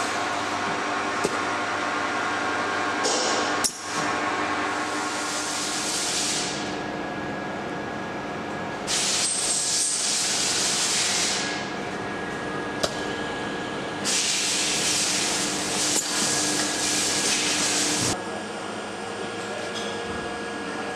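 BK 60 orbital riveting unit cycling: a steady machine hum under three bursts of air hiss lasting two to four seconds each, with sharp clicks about four, thirteen and sixteen seconds in.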